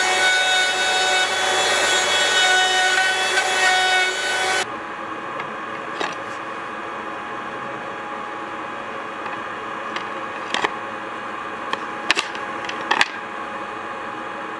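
Electric wood router running at speed and cutting into a clamped wooden block: a steady high whine with rasping wood noise, which cuts off suddenly about four and a half seconds in. After that a quieter steady background with a few light clicks and knocks.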